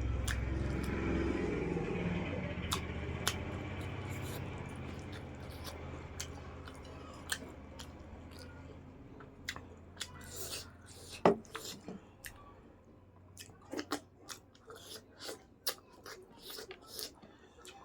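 A person chewing and eating, with short sharp wet clicks and smacks that come thick and fast in the second half. A low steady hum, the loudest thing at the start, fades away over the first several seconds.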